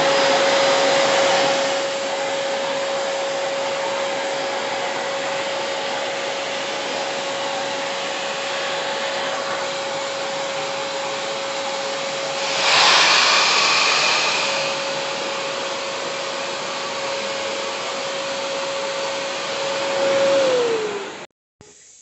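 Stihl SE 33 wet and dry vacuum cleaner's 1400-watt motor running, a steady whine over a rush of air through the hose and floor nozzle. The rush grows louder for a couple of seconds about halfway through. Near the end the whine drops in pitch and the sound cuts off.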